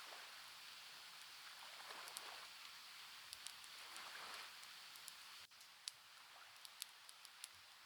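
Fireplace crackling: a soft hiss with scattered sharp pops and ticks, which come more often after a sudden dip about halfway through.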